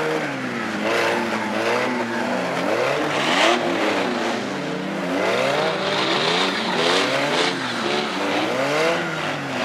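Several demolition derby cars' engines revving up and down at once, their pitches rising and falling out of step with one another.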